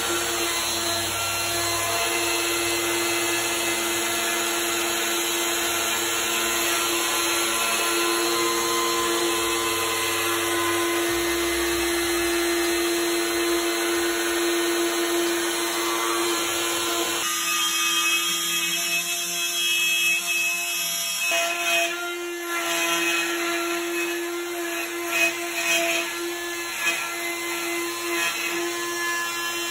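DeWalt compact router running at a steady high pitch while cutting walnut plywood door panels, routing hinge-cup holes and semicircular handle cutouts. In the last third the cut turns uneven, with brief louder spikes.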